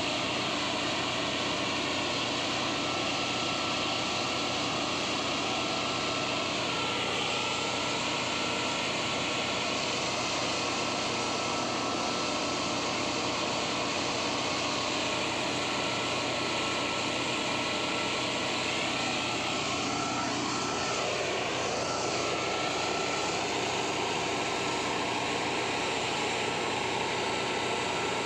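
Steady, unbroken roar of rail-welding equipment at work, holding an even level throughout with a faint steady tone running through it.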